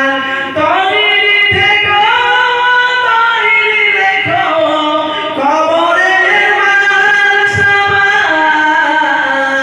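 A man singing a Bengali Islamic devotional song (gojol) solo into a microphone, holding long, wavering notes with short breaths between phrases.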